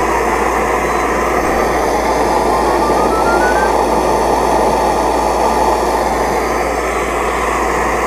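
Homemade jet-type alcohol stove made from a paint can, burning hard under a pot of water with a loud, steady rushing noise of pressurised flame. A faint tone rises in pitch about three seconds in.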